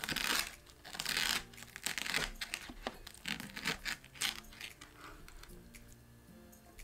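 A chef's knife sawing through an air-fried pork knuckle on a wooden cutting board, with the skin and meat giving rough, crackly tearing and scraping strokes. The strokes come in clusters and grow fainter after about four and a half seconds.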